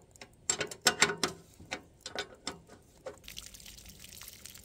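Ratchet wrench clicking in short, uneven runs as it backs the bottom nut off the turbine cover of a Rapid Rain irrigation traveler. About three seconds in, a steady trickle of water starts running out of the loosened housing.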